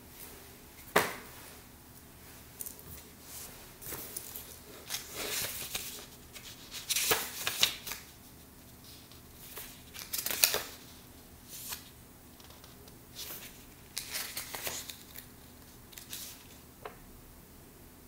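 Paper being handled close by: irregular rustling and crinkling on and off, with a sharp click about a second in.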